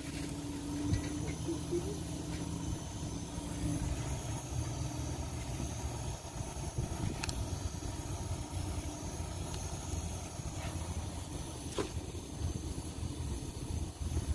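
Portable gas burner running under a pot of soup: a steady low rumble with hiss, and a few faint clicks.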